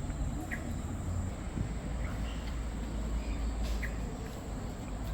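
Rainforest ambience: a steady high-pitched insect drone with a few short bird chirps, over a low rumble.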